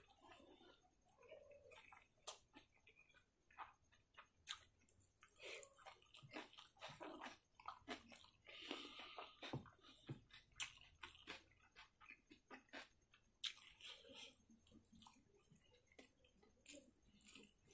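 Faint, close-up chewing and lip smacking of a person eating rice and pork by hand: a run of irregular soft clicks and smacks.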